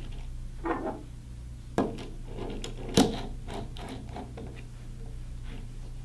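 Tool handling on a joystick's handle base: a socket wrench is fitted onto the 11 mm nut, with two sharp clicks about two and three seconds in, then a run of faint irregular ticks.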